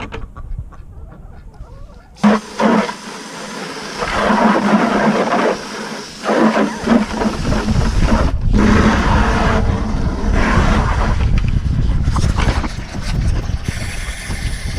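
Water rushing into a 5-gallon bucket as it is filled, a loud, even hiss that starts about two seconds in and briefly cuts out once midway.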